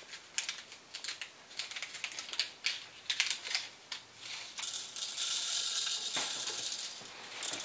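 Small packets of Exploderz ammo beads crinkling and tearing open in a run of quick crackles. About four and a half seconds in comes a steady hiss lasting two or three seconds as the tiny dry beads are poured into the toy blaster's plastic clip.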